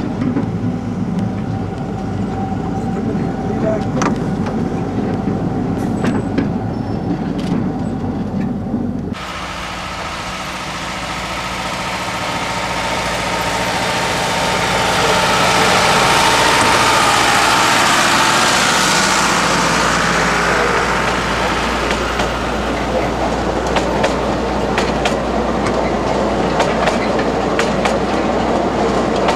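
Ride in an open carriage of a 50 cm narrow-gauge railway, with wheels running and clicking over the rail joints. After an abrupt change, an oncoming train of the same line passes close alongside on the next track, its noise swelling for several seconds and then fading.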